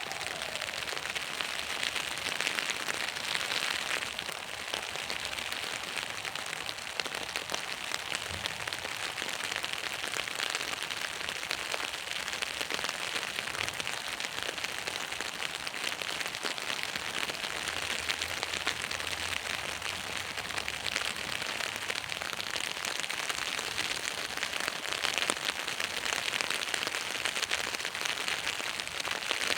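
Steady rain pattering on an umbrella: a dense, even drumming of many small drops.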